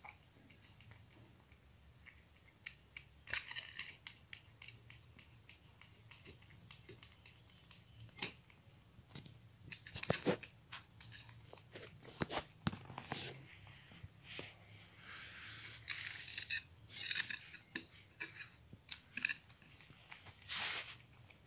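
Persian cats eating canned sardine cat food from a stainless steel bowl: faint, irregular chewing and licking clicks, with a few sharper clicks against the bowl.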